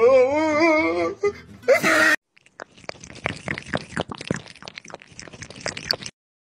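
A loud, wavering cry with a wobbling pitch lasts about a second. After a short break, a kitten laps water from a drinking glass: quick, irregular clicking laps for about three and a half seconds.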